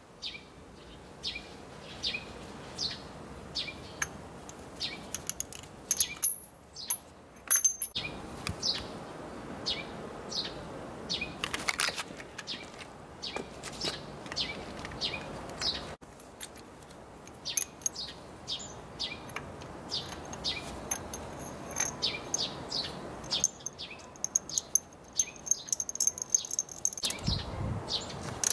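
A small bird chirping over and over, about two short calls a second. Now and then there are bright metallic clinks of hand tools, a ratchet and spark-plug socket being handled.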